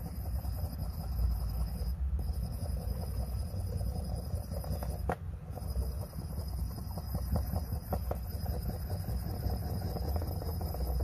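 Steady low background rumble with faint high steady tones over it, and a few light scratchy ticks as a wooden stick rubs polishing paste over a coin clamped in a metal holder.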